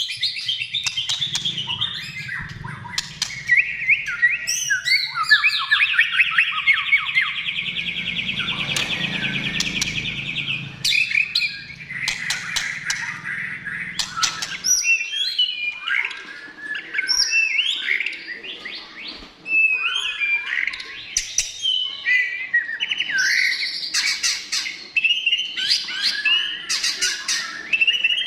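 White-rumped shama singing a long, varied song of whistles, chirps and sharp clicks, with a fast trill held for several seconds near the middle. A low hum runs underneath and stops about halfway through.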